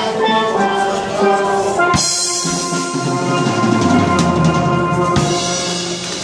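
Steel pan band with drum kit playing; about two seconds in a sharp hit, then a long held chord over a drum roll, closed by a final hit about five seconds in, the ending of the tune.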